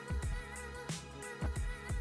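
Background music with a steady beat: electronic-sounding kick drum and bass with sustained instrumental tones.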